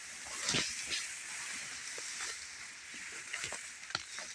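Footsteps through standing wheat: dry stalks rustling and crackling, with a few sharp snaps scattered through.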